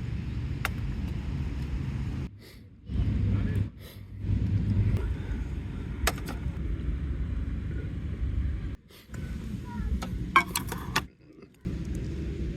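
Low, steady rumble of wind and road noise on the microphone, in short clips cut together abruptly, with a few sharp clicks.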